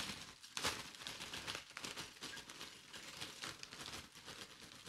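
Thin potato chips poured out of a crinkly chip bag onto a plate: the bag rustling and crinkling while the chips land in many small irregular clicks, tapering off near the end.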